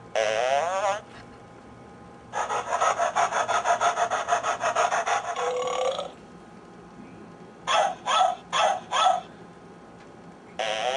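Madd Muttz motion-activated plush toy dog playing its recorded sound effects: a short burp, then a rhythmic scratching rasp lasting about four seconds, then four quick barks, and a second short wavering sound near the end.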